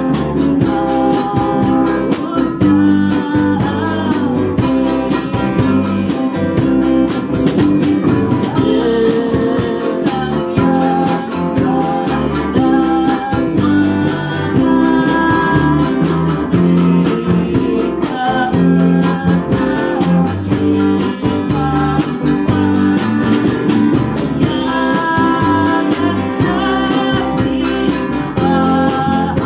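Live band playing a song: a woman singing into a microphone over strummed acoustic guitar, electric guitar and drums.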